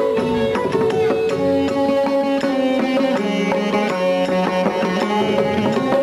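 Indian classical-style instrumental music: a plucked string instrument playing quick runs of notes over a steady drone, with hand drums.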